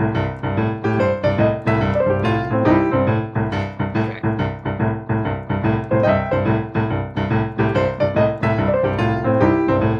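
Digital piano playing boogie-woogie with both hands: a steady rolling left-hand bass pattern under a quick right-hand finger run that moves from a high position down to a low one.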